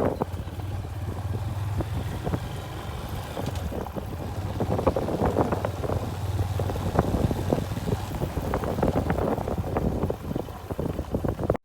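Motorcycle running on the road while being ridden, a steady engine hum with wind buffeting the microphone and frequent small knocks and rattles.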